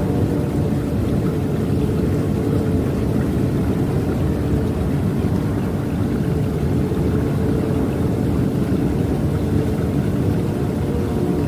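Steady rushing water, a low even wash with no breaks. A distant train horn trails off at the very start.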